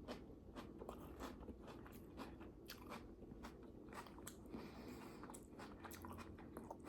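Faint crunching of someone chewing salad, a run of irregular crisp clicks.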